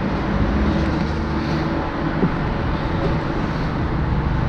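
Steady mechanical hum of refrigeration plant running, with a continuous low drone. A faint knock comes about two seconds in, as the loose sheet-metal grille panel is handled.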